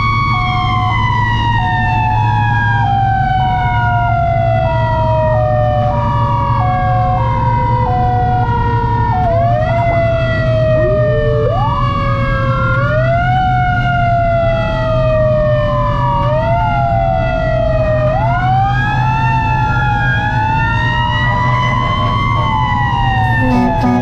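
Fire engine sirens over a steady low engine drone. At first one siren winds slowly down while a two-tone hi-lo siren alternates. From about nine seconds in, several sirens wail up and down at once, overlapping.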